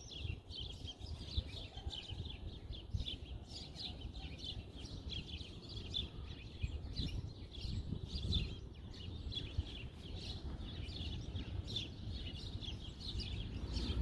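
A flock of small birds chirping and chattering constantly, many short overlapping high chirps with no pause, over a low background rumble.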